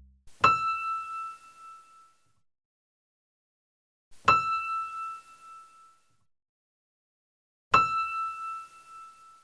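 A bell-like metallic ding struck three times, about three and a half seconds apart. Each stroke rings at one clear pitch and dies away over a second or two.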